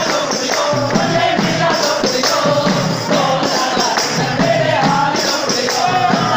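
A crowd singing together, with hand-held tambourines beaten in a steady rhythm.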